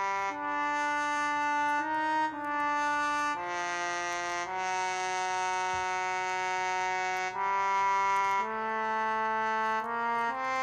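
A sampled French horn in Logic 9 plays a slow melody one note at a time, some notes held for a few seconds. It is played live from the computer keyboard and has a slightly mournful tone.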